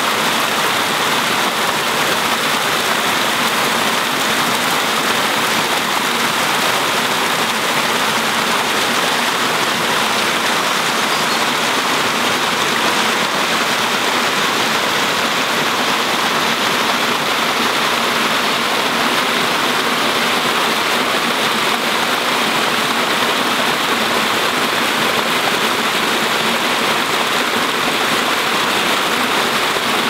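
Small creek cascade spilling over rocks into a pool: a steady rush of water.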